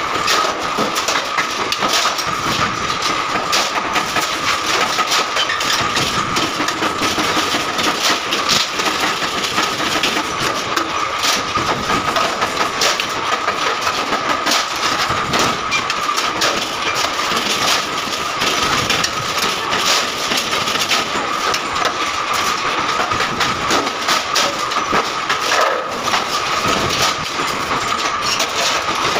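Sheet-metal workshop din: machinery running with a steady high whine, dotted with frequent irregular metallic clanks and knocks from power presses and sheet-steel stove bodies being handled.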